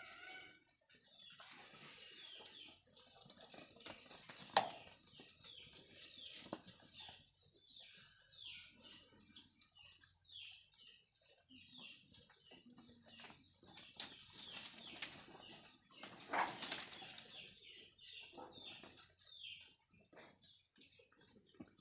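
Small birds chirping over and over in short, falling chirps, with a sharp knock about four and a half seconds in and a louder clatter around sixteen seconds in.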